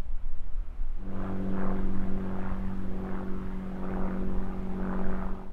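Wind rumbling on the microphone; about a second in, a steady engine drone at one unchanging pitch starts and holds.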